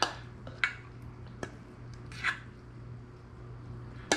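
Metal spoon scooping dressed roasted beets out of a stainless steel bowl onto a plate, with a few light clinks of spoon on metal and china and a soft wet squish about two seconds in.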